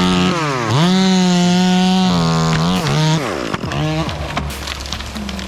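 Chainsaw cutting through a tree branch at high revs, the engine note dipping and picking up again about a second in. From about three seconds in the note turns uneven and drops, with a run of sharp cracks.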